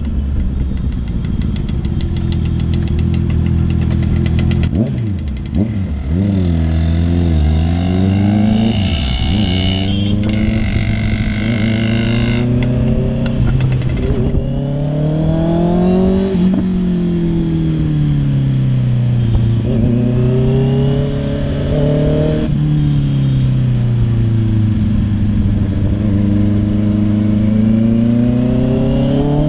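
Honda CBR650R's inline-four engine through an aftermarket IXIL full-system exhaust, heard from the rider's seat while under way. The pitch climbs as the bike accelerates and drops as the throttle closes, several times over.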